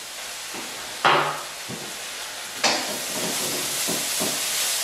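Sizzling in a hot wok of stir-fried vegetables, taken off the flame but still hot: it flares up suddenly about a second in and again, more strongly, at about two and a half seconds as nuts and seeds go in, then keeps up a steady sizzle as the wok is stirred.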